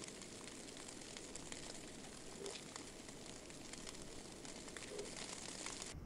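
Quiet outdoor ambience in snowfall: a steady faint hiss with scattered faint ticks, and a soft low note that repeats about every two and a half seconds.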